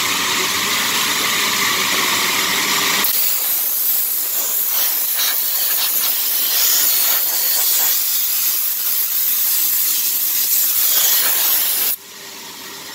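Park Industries Fastback edge polisher running on a granite backsplash strip: a loud, steady hiss with a machine hum under it. The hiss turns brighter and harsher about three seconds in and falls off suddenly near the end.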